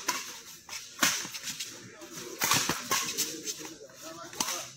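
Badminton rackets striking a shuttlecock in a doubles rally: a few sharp cracks, roughly one every second or two.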